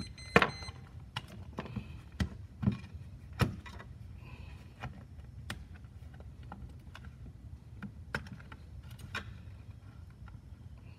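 Hands handling and pressing on a plastic charger housing: scattered sharp clicks and knocks, several louder ones in the first few seconds and sparser ones after, over a low steady hum.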